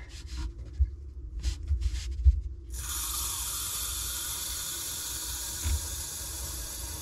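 Water supply valve being opened slowly below a newly installed pressure reducing valve: after a few faint handling knocks, a steady hiss of water rushing into the pipe starts suddenly about two and a half seconds in.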